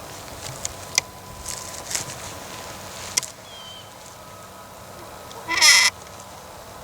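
A short, loud bleat-like animal call about five and a half seconds in. Before it come a few sharp clicks and a faint chirp.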